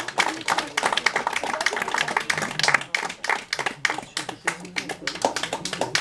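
Small audience applauding with hand claps, thinning out in the second half, with voices talking underneath.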